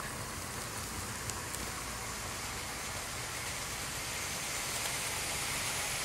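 00 gauge model trains running past on the layout's track: a steady rushing noise of wheels rolling on rails, growing a little louder about four seconds in.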